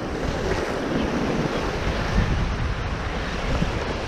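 Ocean surf breaking and washing over a rock ledge, a continuous rushing wash, with wind buffeting the microphone and adding a low rumble.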